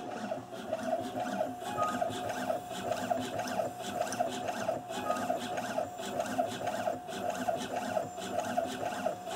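CNC coil winding machine running a winding cycle, winding copper wire onto a Husqvarna SM/TE610 alternator stator coil. It gives a steady whine with a fast, even pulsing, and a short higher tone about every three seconds.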